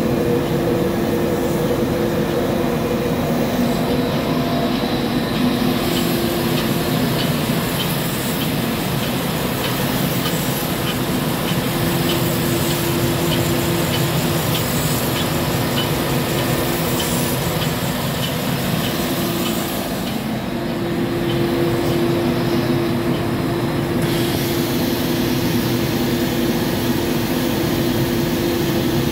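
Sandingmaster SA-3200-1350 wide-belt sanding machine running steadily: the drone of its sanding-belt motors and feed, with a constant hum and a faint regular ticking through the middle part.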